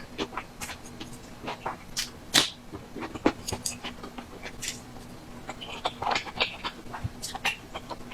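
Close-miked eating: a person chewing and lip-smacking on small buns in spicy mala sauce, an irregular run of wet clicks and smacks with no pause of more than a second or so.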